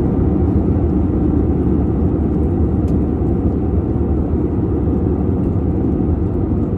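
Steady, loud low rumble of noise, even throughout, with no pitch or rhythm to it.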